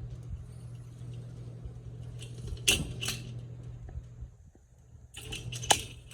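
Hampton Bay Hugger ceiling fan running with a steady low motor hum. A few short metallic clinks and jingles come about two and a half seconds in and again near the end.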